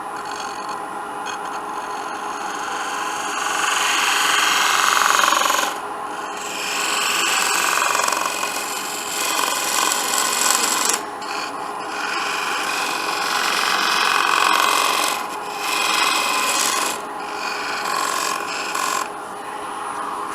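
Wood lathe running with a steady motor hum while a 1/4-inch bowl gouge cuts into a spinning cedar blank, the rough cutting noise swelling and fading in about six passes of one to two seconds each. The gouge is dull.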